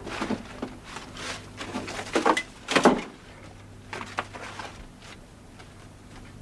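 A run of knocks and clatters from household things being handled and put away, loudest about three seconds in, with a few lighter knocks a second later. A steady low hum runs underneath.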